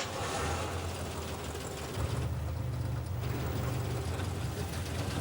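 Car engine running steadily with a low rumble, which grows louder about two seconds in.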